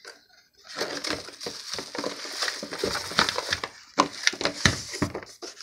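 Paper and plastic packing material crinkling and rustling as a hand rummages in a cardboard box and pulls out a wrapped item. It is a continuous crackle with sharper crackles scattered through it, starting about a second in.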